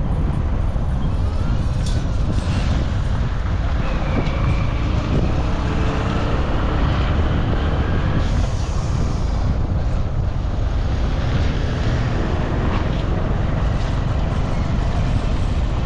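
Road traffic running past, heavily mixed with wind rumbling on the microphone; a brief hiss about eight seconds in.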